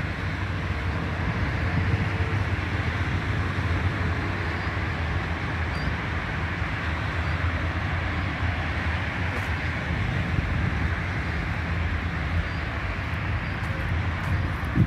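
Steady outdoor background noise: a low rumble with an even hiss over it and no distinct event, with a short knock right near the end.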